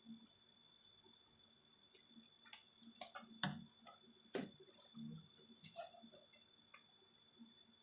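Scattered light clicks and taps of small tools and parts being handled during bench repair work on a receiver's power-supply board, most of them in the middle of the stretch, over a faint steady high-pitched tone.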